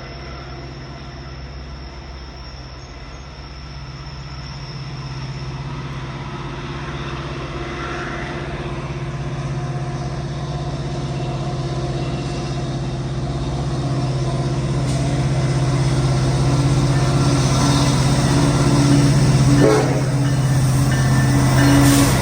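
Diesel freight train approaching, led by an EMD SD70M-2 locomotive: its engine hum grows steadily louder as it nears.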